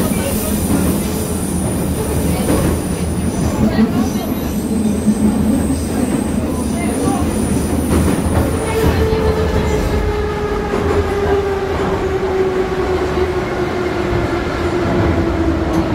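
Moscow metro train heard from inside the car, running with a rumble and high wheel squeal in the first half. From about halfway the motors' whine slides steadily down in pitch as the train slows for the station.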